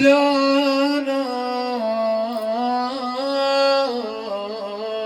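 A man's solo voice chanting a long, ornamented note of an Arabic Shia elegy (a Husseini lament). The held note steps down in pitch a few times and eases off near the end.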